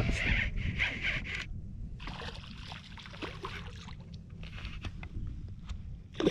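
Handling noise of a Lew's Mach Crush baitcasting rod and reel while a hooked redfish is being played: a hissing rasp for the first second and a half, then scattered scrapes and clicks, over a low rumble of wind on the microphone.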